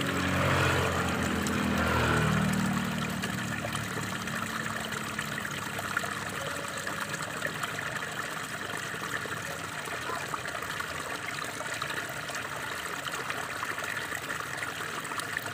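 Water pouring steadily from the end of a bamboo pipe and splashing into a shallow pool. In the first three seconds a louder low hum with a steady pitch lies over the splashing, then fades.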